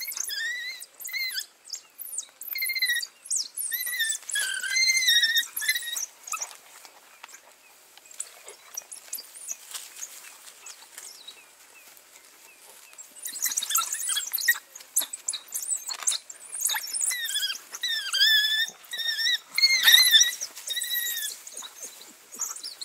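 African wild dogs (painted wolves) twittering: many short, high-pitched chirping calls in busy bursts, with a quieter stretch in the middle.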